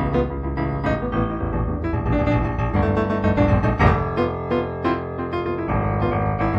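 Solo piano music, improvised, with notes struck in steady succession over held chords.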